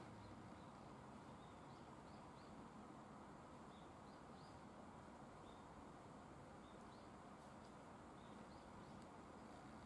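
Near silence: faint steady background hum, with faint short high chirps scattered through it.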